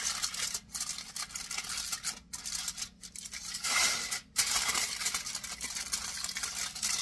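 Aluminum foil crinkling as it is folded and pressed tightly around a dish by hand. The crackle is uneven, with short pauses, and is loudest about four seconds in.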